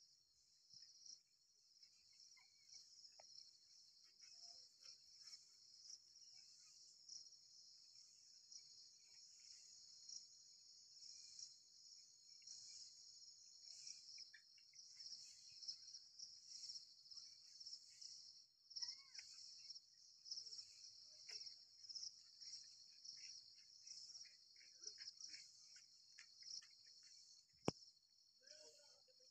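Faint, steady, high-pitched chorus of insects, pulsing slightly, with scattered faint chirps and one sharp click near the end.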